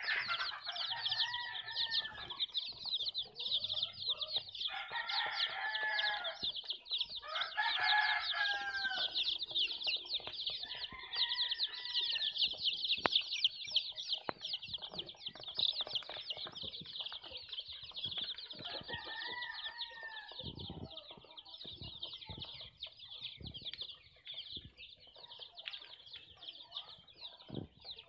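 A crowd of young chicks peeping continuously, a dense chorus of high, rapid peeps, with a few lower, louder calls standing out now and then and scattered light taps and scratches.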